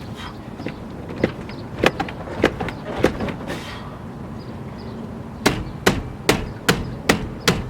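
Repeated sharp knocks on the stock steering wheel to work it loose from the steering shaft, with the centre bolt already removed: four knocks about half a second apart, then a quicker run of about six near the end.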